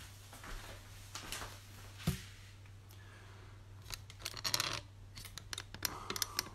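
Handling noise from the phone that is streaming the video: a single knock, then scratchy rubbing and clicks from about four seconds in, over a steady low hum.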